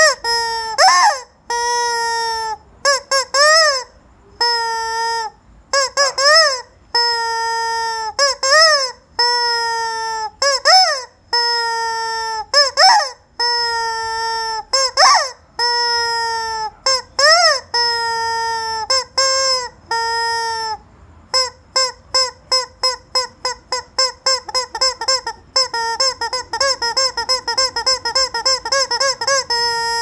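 Rubber screaming-chicken toy squeezed over and over, giving long honking squawks of about a second each, some bending up and down in pitch. In the last third it is pumped fast, about four short squawks a second.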